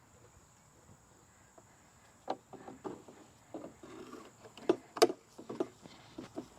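Hard plastic parts of a giant skeleton decoration knocking and clicking together as the pieces are handled and fitted. The knocks are scattered and start about two seconds in, and the loudest two come close together about five seconds in.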